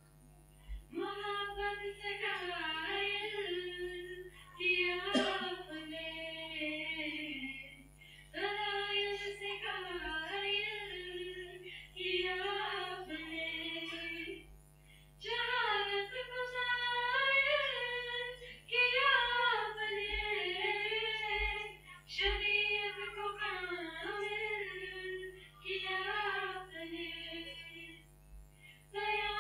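Female voices singing an Urdu nazm without instruments, in long melodic phrases broken by short pauses for breath.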